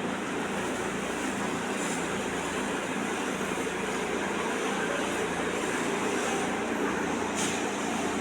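Steady mechanical running noise with a faint low hum, unchanging throughout.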